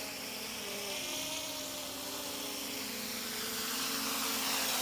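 Electric quadcopter's motors and propellers whining in flight, several steady tones that drift slightly in pitch, growing louder near the end as it comes closer.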